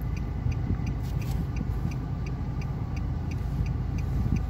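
Steady low rumble of a car idling, heard from inside the cabin, with a turn signal ticking about three times a second. Another car passes outside.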